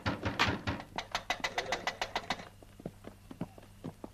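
A quick, even run of sharp thuds, about five a second. It thins to fainter, slower thuds after about two and a half seconds.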